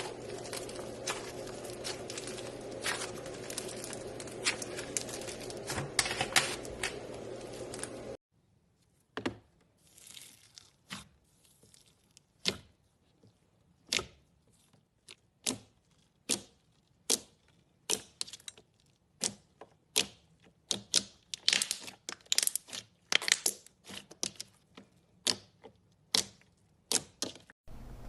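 Slime being squeezed and poked by hand, giving quick sharp clicks and crackles. For the first eight seconds a steady low hum runs underneath. The hum then cuts off, and after that the clicks come spaced apart, growing denser toward the end.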